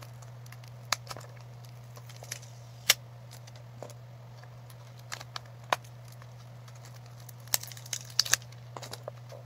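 Clear plastic tube of sand-like moon dust handled in the hands, with its plastic tag loop: scattered sharp clicks and crinkles of plastic, loudest about three seconds in and in a cluster near the end. A steady low hum runs underneath.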